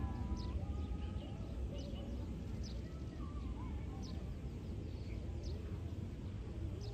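Wind buffeting the microphone with a steady low rumble, while a bird repeats a short, high, falling chirp about once every second or so.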